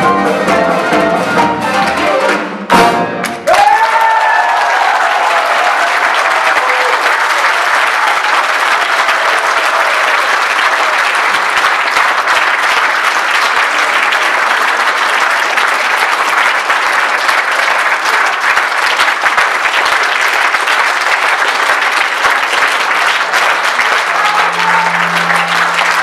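A small band of violin, accordion, guitar and drum kit plays its last bars, ending on a drum and cymbal hit about three seconds in. The audience then applauds steadily, with a few cheers as the clapping begins.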